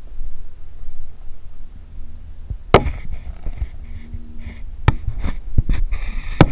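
Low rumble of wind on the microphone, then from about three seconds in a string of sharp knocks, clicks and scuffing rustles right at the camera: handling noise as the wearer's arm and clothing rub and bump against the body camera.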